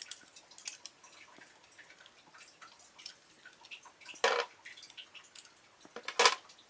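Small parts of a Beyblade top clicking and ticking as they are handled and taken apart by hand to change its PC frame (fusion wheel) mode, with two louder clacks about four and six seconds in.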